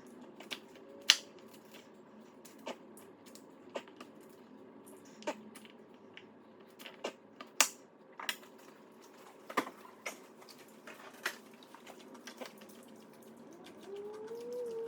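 Kitchen cooking sounds: scattered sharp clicks and taps at irregular intervals over a faint steady hum. Near the end a pet gives a whining cry that rises and falls.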